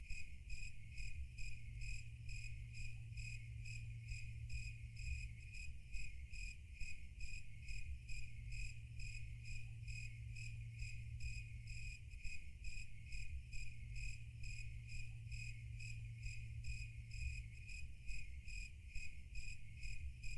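Crickets chirping in a steady, even rhythm of about three chirps a second, over a low steady hum.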